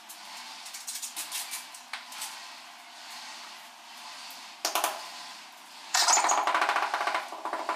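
Rapid, repeated tapping on a ceramic wall tile to bed it into the wet cement mortar, starting about six seconds in. A brief clatter comes a little before, as the tile is set against the wall.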